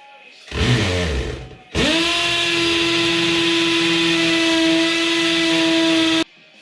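Power drill boring a hole into the masonry wall for a concrete anchor: a short burst about half a second in, then a steady run of about four seconds that cuts off suddenly.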